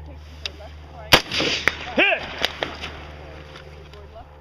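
A single rifle shot from a scoped AR-15-style rifle about a second in, with a trailing echo. A short pitched sound that rises then falls follows about a second after the shot.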